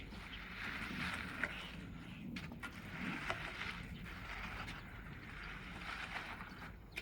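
Concrete pump truck working during a foundation pour: a steady low engine hum under a rushing noise that swells and fades every second or two, with a few scattered knocks.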